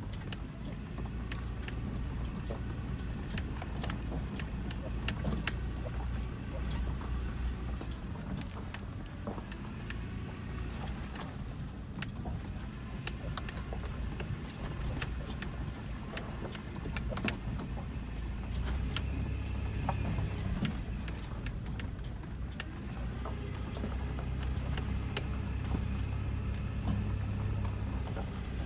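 Cab of a Toyota 4Runner crawling along a rough dirt trail: the engine drones low and steady, a little stronger past the middle, under frequent sharp clicks and rattles as the truck jolts over ruts and stones.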